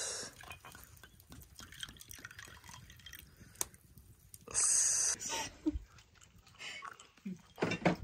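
Sake being poured from a bottle into a small ceramic sake cup: liquid trickling and dripping, with a short loud splashing hiss about four and a half seconds in.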